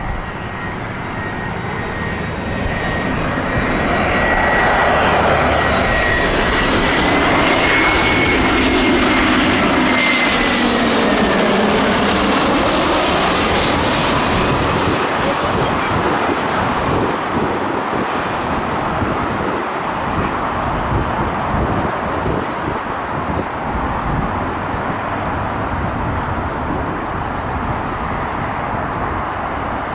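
Jet airliner passing low overhead on final approach to land, its engines a loud rushing roar with a high whine. The whine drops in pitch as the aircraft goes past, about ten seconds in, and the roar then carries on more evenly as it moves away.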